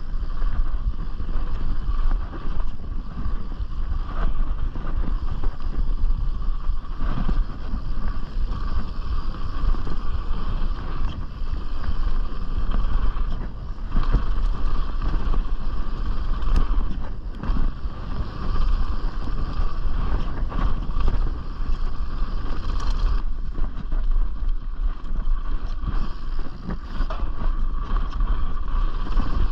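Wind buffeting a chest-mounted action camera's microphone while a full-suspension mountain bike rolls fast down a dirt bike-park trail, with tyre noise and scattered knocks and rattles from the bike over rough ground.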